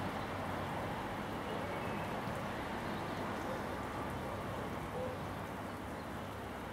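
Steady crackling hiss of the insulation sizzling and smoking on a category 4 data cable heavily overloaded with current.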